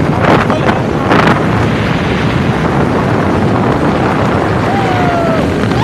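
Wind buffeting the microphone on a moving motorcycle, a loud steady rush, with the bike running underneath. A short gliding tone is heard near the end.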